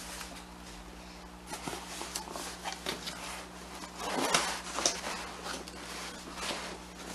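Cardboard shipping box and the items packed in it being handled by hand: soft rustling, scraping and light knocks of cardboard against cardboard. The sounds come in scattered short bursts and are loudest about four to five seconds in.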